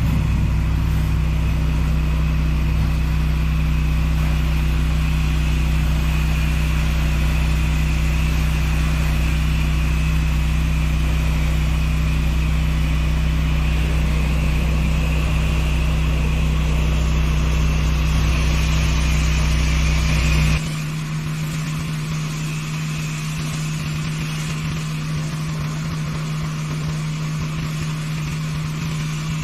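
Pressure washer running steadily: the engine's drone under the hiss of high-pressure water spray. About two-thirds of the way through, the deep low rumble cuts out suddenly and the sound gets a little quieter, while the engine tone and spray continue.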